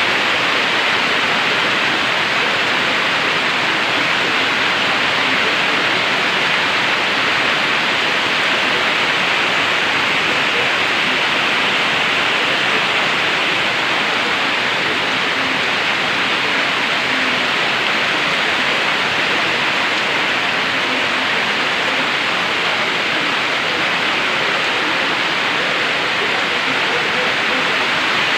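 Heavy tropical-storm rain falling steadily: a dense, even hiss that does not let up.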